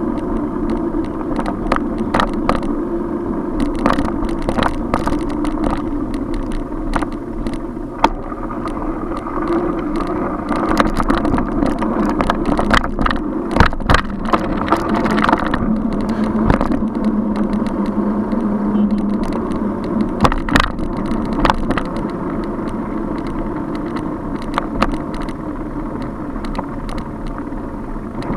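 Bicycle riding through city streets: steady road and traffic noise with frequent sharp knocks and rattles as the bike goes over bumps, and a steady low drone for a few seconds past the middle.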